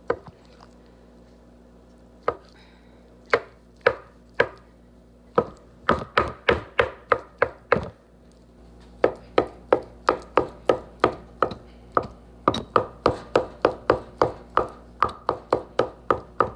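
Chef's knife chopping hard-boiled eggs on a wooden cutting board: a few separate knocks at first, then quick runs of chops at about three a second, with a short pause in the middle.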